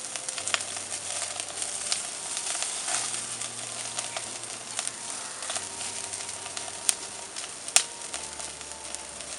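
Chicken wings sizzling over a charcoal grill as they brown, with a steady hiss full of fine crackles. Two sharp clicks come about seven and eight seconds in.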